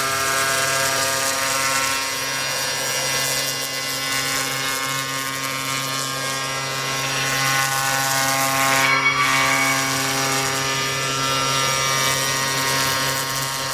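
CNC router running while engraving foam: a steady spindle whine made of many evenly spaced tones over a hiss of cutting, with a brief shift in the tone about nine seconds in.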